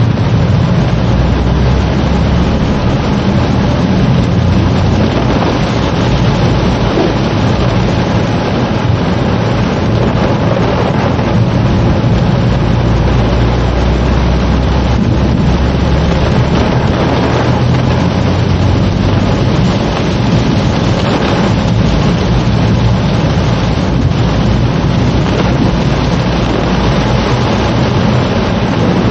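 Heavy rain beating on a moving car's roof and windscreen, heard from inside the cabin, mixed with the engine and tyre noise of driving on a wet road. It is a loud, steady rumble with no breaks.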